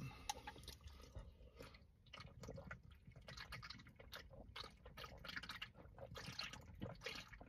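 Faint gulping and swallowing as someone drinks from an aluminium can, with small irregular clicks and wet sounds.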